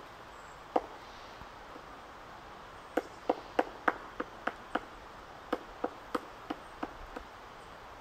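Pileated woodpecker pecking into a rotting, moss-covered trunk: single sharp knocks of its bill on the wood. One comes about a second in, then from about three seconds a run of about a dozen, roughly three a second and unevenly spaced, not a fast drumroll.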